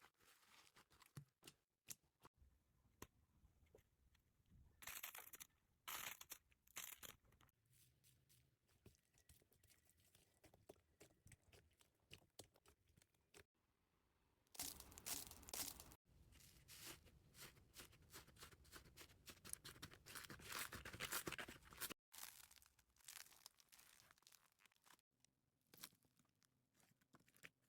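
Slime being squeezed and stretched by hand: quiet crackling with many small clicks and pops, and louder stretches of crackle about five, fifteen and twenty seconds in.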